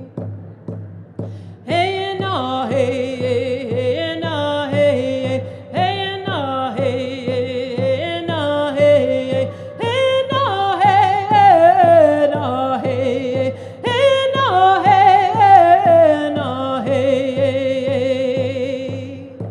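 A woman singing a song, her melody rising and falling with a slight waver, over a steady low accompaniment that pulses evenly; the voice comes in about two seconds in.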